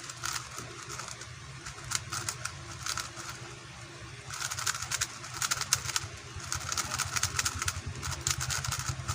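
A QiYi X-Man Tornado V2 speedcube being turned fast, its layers giving quiet rapid clicks and clacks in quick flurries with short pauses between. A steady low engine hum runs underneath.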